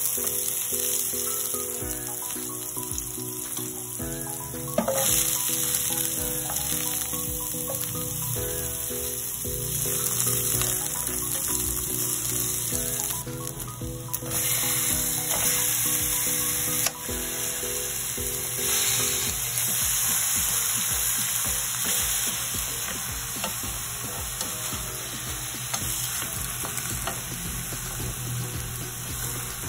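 Ginger and onion sizzling as they fry in a nonstick pan, stirred with a plastic spatula.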